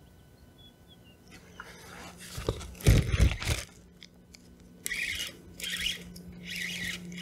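Spinning reel being cranked in short scratchy bursts and the rod being handled against the kayak while a small sheepshead is fought on the line, with heavy bumps around three seconds in.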